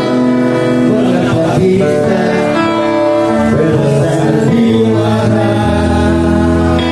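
Live band music with a singer over guitar and held instrument notes, played through a PA; a deep bass note comes in near the end.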